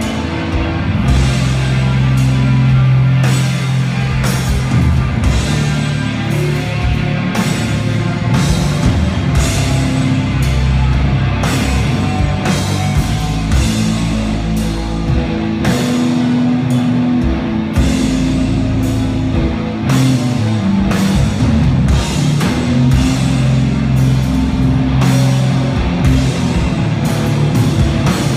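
Doom metal band playing live: distorted electric guitars and bass holding long, heavy low chords over a drum kit, with cymbal crashes about once a second.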